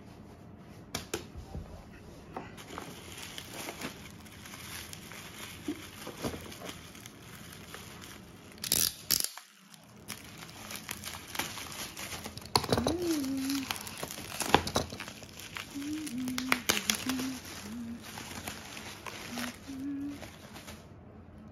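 Bubble wrap crinkling and tearing as it is cut with a box cutter and pulled off a glass jar, with many sharp crackles and rustles and a loud rip just before the middle.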